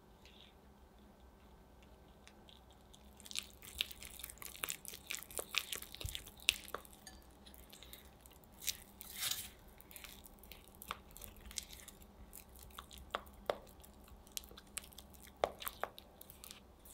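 A spatula stirring and scraping powdered sugar and lemon juice in a glass bowl, mixing a thick lemon glaze. It is a crunchy, sticky run of clicks and scrapes against the glass that starts about three seconds in and grows sparser toward the end.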